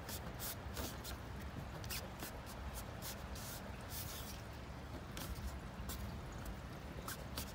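Fingers pressing and rubbing a stick-on emblem onto a car's front grille: scattered short rubs and taps over a low steady hum.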